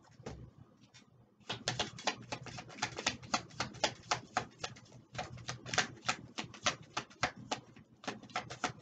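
A deck of oracle cards being shuffled by hand: quick runs of crisp card clicks starting about a second and a half in, with short breaks about five and eight seconds in.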